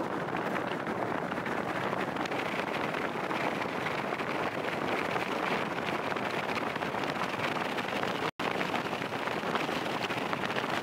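Steady rushing wind and road noise from a vehicle driving along, with a momentary cut to silence about eight seconds in.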